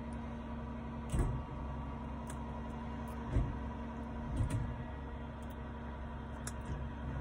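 Steady hum inside a car cabin, with a few short crunching knocks from biting and chewing a cherry-dipped ice cream cone, the clearest about a third of the way in and just after the middle.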